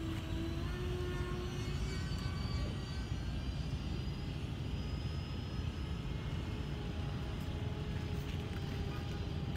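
Twin 70 mm electric ducted fans of an FMS A-10 RC jet whining in flight overhead. The whine is steady and shifts slightly in pitch, over a steady low rumble.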